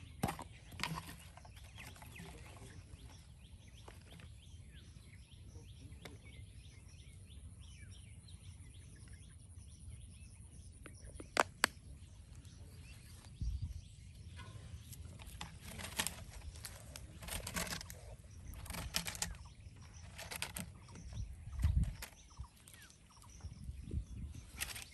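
Outdoor ambience: a steady low background noise with faint bird chirps, and scattered sharp clicks and knocks, a close pair of them about eleven seconds in and more of them through the second half.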